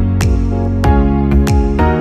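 Background music: an electronic track with sustained chords over a steady beat of about three hits every two seconds.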